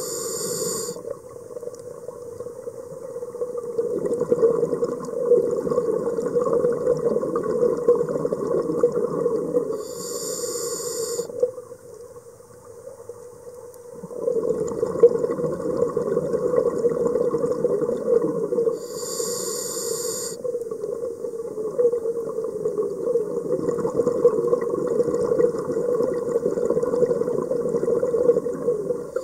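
Scuba diver breathing through a regulator, heard through an underwater camera housing: a short hiss of inhalation three times, about every nine to ten seconds, each followed by a longer low rush of exhaled bubbles.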